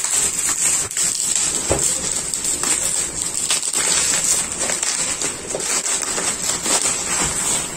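Packaging being handled and torn open: continuous crinkling and rustling with many small crackles.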